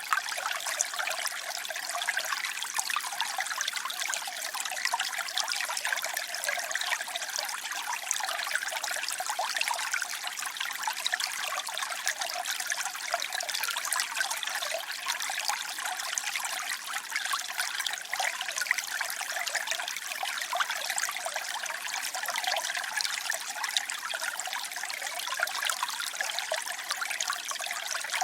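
Flowing water trickling and splashing steadily, a bright, even water sound with no deep rumble.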